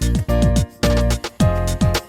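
Background music with a steady beat of deep drum hits, about two a second, under pitched instrument notes.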